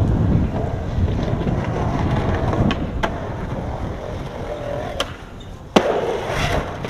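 Skateboard wheels rolling on concrete, with several sharp clacks of the board, then one loud smack near the end as the skater falls onto the street.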